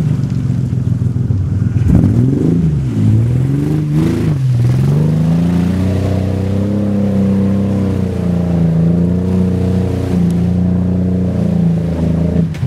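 1996 Ford Explorer's 4.0 L V6, running on five of its six cylinders, is revved up and down twice in the first few seconds. It then holds a higher, fairly steady engine speed with small rises and falls.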